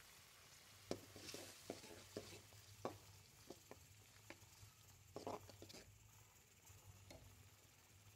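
Spatula stirring and scraping thick tamarind paste against a steel pan, heard as faint soft taps and scrapes, a cluster about a second in and another around five seconds.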